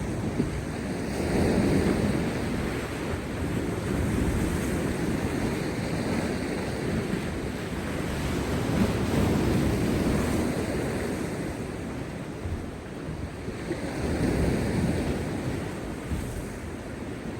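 Heavy sea waves breaking and surging over rocks, the surf swelling and falling back in rolling surges every few seconds, with wind buffeting the microphone.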